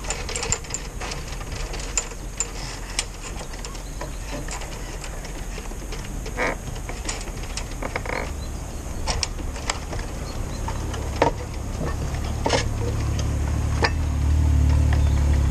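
Scattered light clicks and knocks of hand work on a sailing-boat mast and its bolted-on timber jig. A low engine rumble builds near the end.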